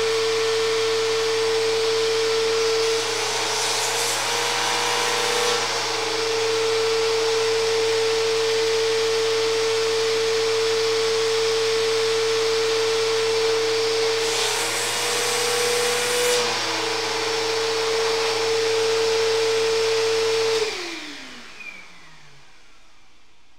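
Vacuum cleaner running steadily, a strong hum over a rush of air, sucking a cleaning string through an air rifle barrel. Its pitch rises briefly twice with a louder hiss. Near the end it is switched off and winds down with a falling pitch.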